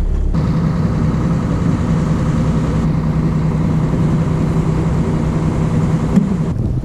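Boat engine running steadily with an even low hum and a rushing wash over it, the boat under way on choppy sea. It cuts in abruptly just after the start.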